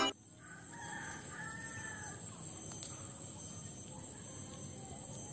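A rooster crowing faintly, one call of about two seconds near the start, over steady faint outdoor background noise.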